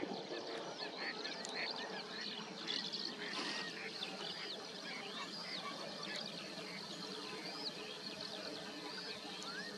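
Many wetland birds calling at once: short, squeaky chirps and calls overlapping densely and without pause, over a steady outdoor hiss.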